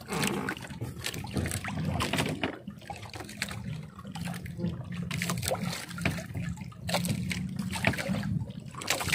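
Water dripping and splashing off a wet gill net as a fish is picked out of it by hand over a boat's side, with scattered small clicks and rustles of net handling. A low steady hum runs underneath.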